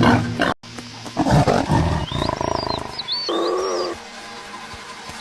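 Wild animal calls: loud, low roar-like calls in the first two seconds, broken by a sudden cut about half a second in, then a pitched call, with high curving chirps repeating through the second half.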